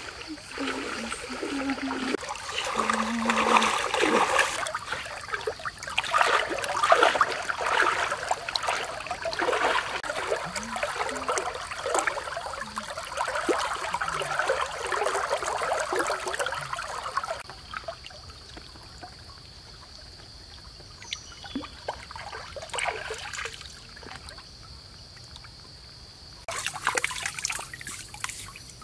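Water splashing and trickling as someone wades through a shallow muddy creek and works a large fish in the water. The splashing is dense for most of the first two-thirds, then drops to a few brief splashes. A steady high-pitched whine runs underneath.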